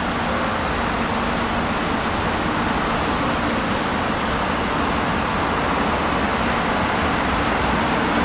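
Steady, even rumble of vehicle noise with a faint low hum running through it.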